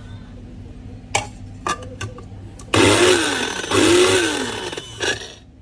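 Electric blade coffee grinder run in two short pulses of about a second each, the motor's pitch rising as it spins up and falling as it runs down each time. A few sharp clicks of handling come before.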